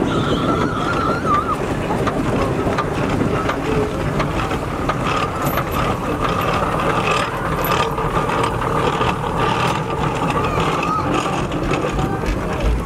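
Steam traction engine running slowly across grass as it drives past close by: a steady mechanical running noise with a low rumble.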